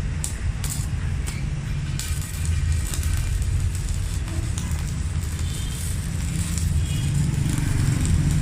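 Stick (MMA) welding arc crackling and sizzling as a 3.2 mm electrode burns, fed by a Megatec 120EF mini inverter welder under full load. A few sharp clicks in the first second give way to steady arc crackle from about two seconds in, over a constant low rumble.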